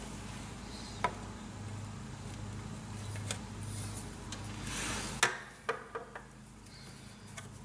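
Front gear cover of a Cummins diesel being fitted by hand onto the engine's gear housing: a few light clicks and knocks as it is shifted and seated. The sharpest knock comes about five seconds in, then three quick clacks, all over a steady low hum.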